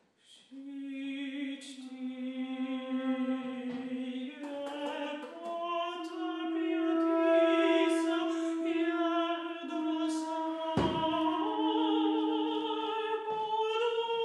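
Mezzo-soprano singing long held notes that step up and down in pitch, with a flute playing alongside, in a contemporary art-song setting. A single sharp knock sounds about eleven seconds in.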